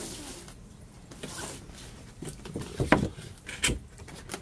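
A cardboard toy box being handled on a table: turned around and its top flaps moved, giving scattered rubs and knocks, the loudest a sharp knock about three seconds in.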